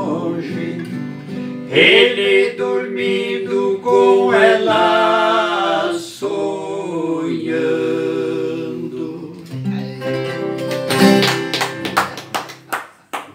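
Men singing a sertanejo raiz song in Portuguese, accompanied by a viola caipira and an acoustic guitar, with held, slightly wavering notes. Near the end the song closes on a few strummed chords that ring out and fade.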